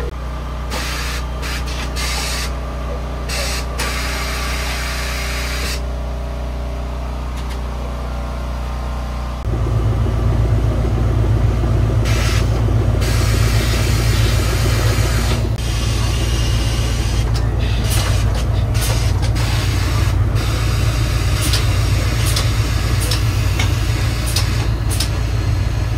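Short bursts of air hissing as tires are inflated from an air line, over a steady machine hum that becomes louder and deeper about nine and a half seconds in.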